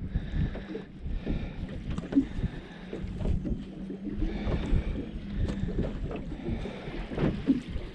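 Small waves lapping and knocking against a boat hull, with wind buffeting the microphone and a steady low hum underneath.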